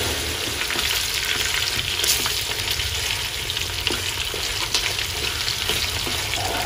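Pieces of fatty pork with the skin on frying in hot oil in a metal wok: a steady sizzle with many small crackling pops, with chopsticks turning the meat near the end.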